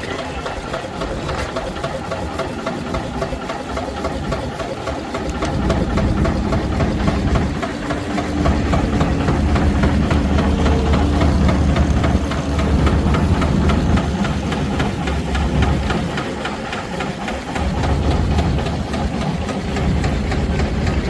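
Steam engines driving a sawmill, running with a rapid steady beat and machinery clatter; the sound grows louder and deeper from about six seconds in until about sixteen seconds, and again near the end.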